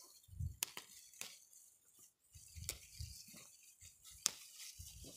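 Faint, scattered snaps and rustles of leafy wild greens being picked by hand, with about half a dozen sharp little cracks and soft thuds in between.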